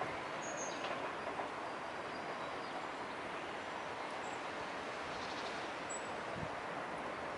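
Steady rushing outdoor background noise with no clear rhythm, and a few faint, brief high bird chirps.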